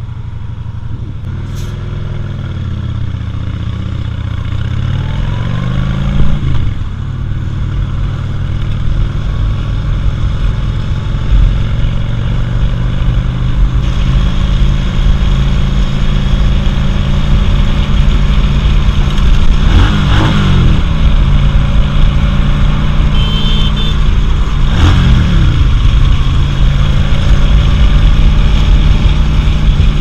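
Cruiser motorcycle engine pulling away from a stop and accelerating through the gears, its pitch climbing, dropping at each shift about six, twenty and twenty-five seconds in, then climbing again. Wind noise builds as speed rises.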